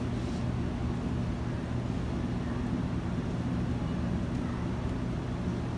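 Steady low mechanical hum of room tone, unchanging throughout.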